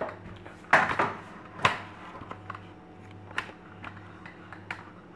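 Handling noise: two loud knocks, about a second in and again just after, then scattered light clicks and taps as things are moved and set down.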